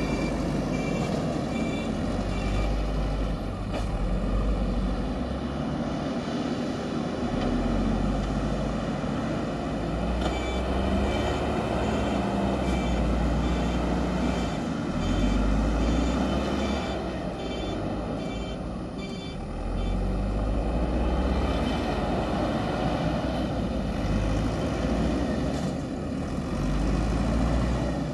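JCB 3DX Super backhoe loader's diesel engine working under load, its level rising and falling as the machine pushes earth. A reversing alarm beeps in spells, near the start and again through the middle.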